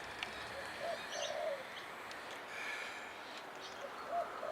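A dove cooing twice, about three seconds apart, each call a short arched note followed by a longer burbled one, with small birds chirping higher up in the background.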